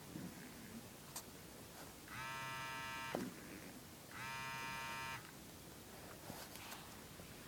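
Two electric buzzes, each about a second long and about a second apart, steady and unchanging in pitch, starting and stopping sharply.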